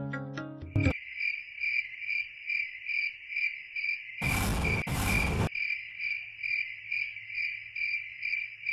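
A cricket chirping in a steady, even rhythm of about three high chirps a second. About four seconds in, two short loud bursts of hissing noise sound back to back.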